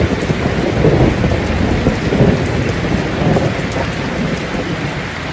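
Steady heavy rain with a low rolling thunder rumble underneath.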